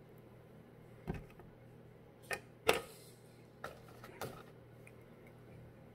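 About five short, scattered clicks and taps over quiet room tone.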